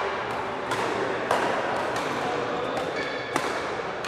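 Badminton rackets striking a shuttlecock in a doubles rally: several sharp hits a second or so apart, the strongest near the end, echoing in a large hall over background chatter.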